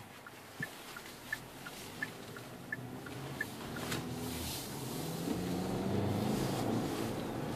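Turn-signal relay ticking in the cabin of a 2013 Hyundai Santa Fe 2.0T, about one click every 0.7 seconds, stopping about halfway through. The 2.0-litre turbocharged four-cylinder engine then grows louder as the SUV accelerates.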